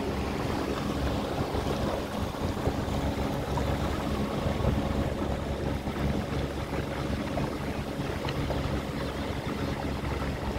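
Motorboat engine droning at a steady pitch, with wind buffeting the microphone and water noise underneath.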